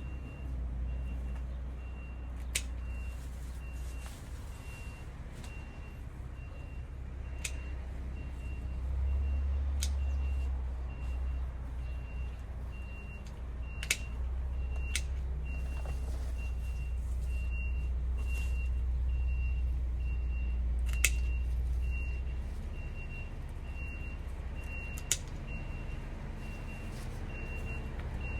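Electronic beeper sounding a short, high beep over and over, a little more than once a second, starting about three seconds in, over a steady low rumble. A few sharp clicks stand out.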